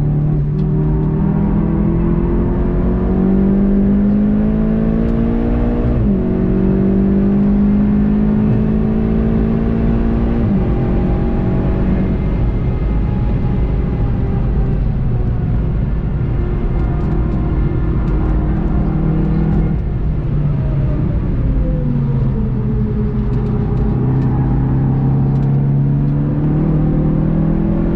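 VW Golf 7.5 GTI TCR's turbocharged 2.0-litre four-cylinder engine at full throttle, its pitch climbing with a sudden drop at each upshift about six and ten seconds in. It then holds high revs at speed over wind and tyre noise. Around twenty seconds in its pitch falls as the car slows, and then it climbs again.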